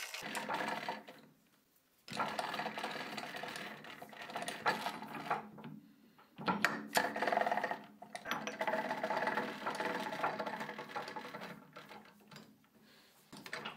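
Metal handling at a three-jaw lathe chuck: steel jaws sliding and clinking as they are set, and an aluminium blank being fitted into the chuck, in several spells with short pauses between.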